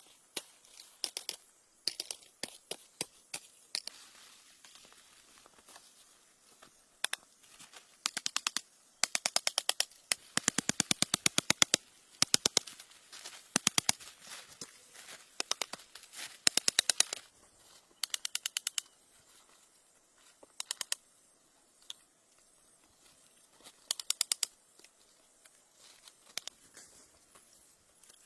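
Bursts of rapid, sharp tapping strikes, about ten a second, in runs lasting from under a second to a few seconds, with short pauses between them.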